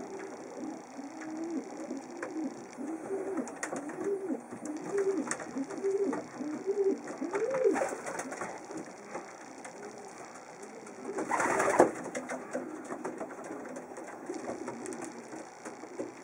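Racing pigeon cooing in a loft: a run of repeated coos, each rising and falling in pitch, that climb higher toward the middle. About two-thirds of the way through comes a brief, louder rustling burst, and then quieter coos.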